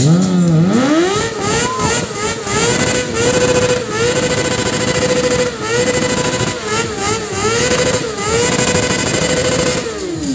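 Sport motorcycle engine revved hard during a stationary burnout with the rear tyre spinning: the revs climb fast, are held high with repeated short dips, and drop away near the end.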